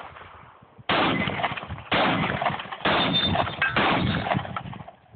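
Shotgun fired four times in quick succession, about a second apart, each shot with a long echoing tail.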